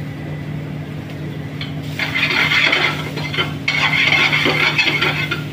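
A kitchen utensil scraping and clinking against a dish while stuffing ingredients are added and stirred. It comes in two scratchy stretches made of many quick strokes, starting about two seconds in, over a steady low hum.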